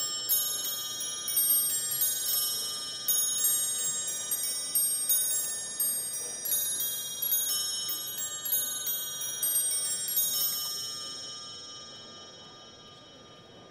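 Musical clock playing a tune on its small bells, several quick hammered notes a second. The tune stops about ten seconds in and the last notes ring away.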